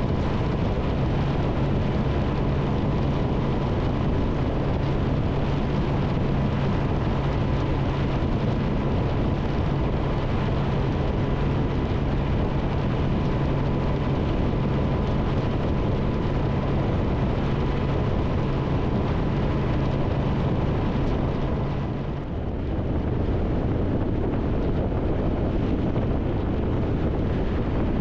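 Triumph Tiger 1200's three-cylinder engine running steadily at road speed under heavy wind rush on the microphone. About three-quarters of the way through, the steady engine tone drops away and the sound dips briefly before the wind and road noise carry on.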